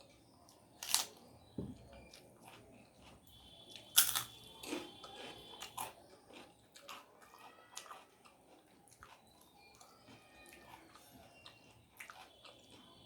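A person biting and chewing crunchy food close to the microphone. Two loud crunches come about one and about four seconds in, followed by softer chewing and small crackles.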